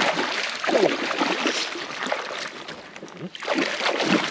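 Water splashing and rushing, with faint voices in the background.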